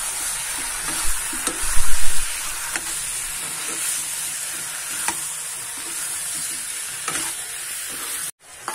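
Chicken and potato pieces sizzling in hot oil in a kadai, stirred with a metal spatula that scrapes and taps against the pan. The spatula makes a few louder knocks about two seconds in, and the sound cuts off abruptly near the end.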